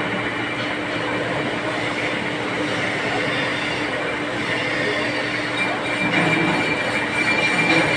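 Metal lathe running, with a steady hum under a high, even whine that grows stronger about six seconds in.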